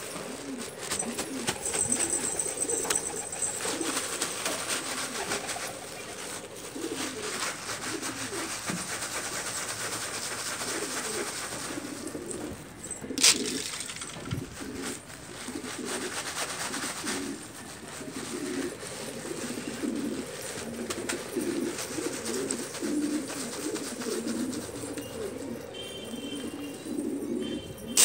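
Domestic pigeons cooing, a continuous low wavering chorus of coos. About halfway through there is a single sharp click, the loudest sound.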